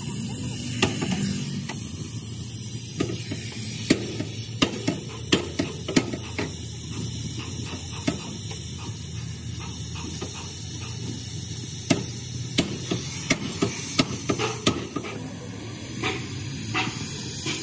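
Oxy-fuel cutting torch hissing steadily as it cuts through steel plate, with sharp cracks and pops coming in two clusters, about four seconds in and again about twelve seconds in.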